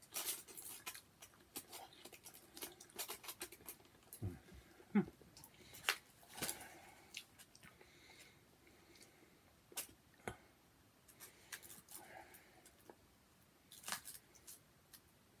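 Someone eating a takeaway kebab: chewing, with scattered sharp clicks and taps of a fork picking at food in a polystyrene takeaway box.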